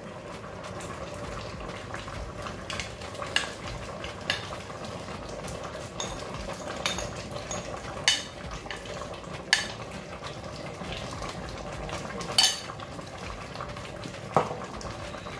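A spoon stirring a pot of simmering soup, clinking sharply against the pot about six times at uneven intervals, over a steady simmering hiss.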